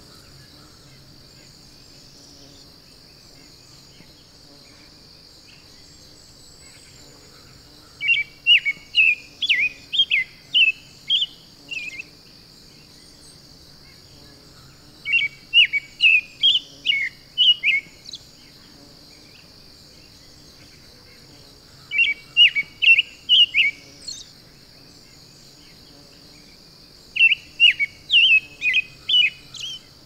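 A songbird singing four times, each song a run of about eight to ten loud, quick slurred notes lasting three to four seconds, over a steady high insect drone.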